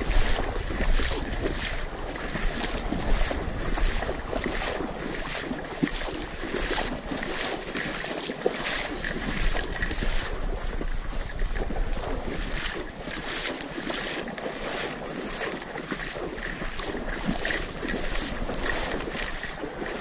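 Wading through shallow marsh water among dry cattail stalks: irregular sloshing steps and rustling stalks, with wind noise on the microphone.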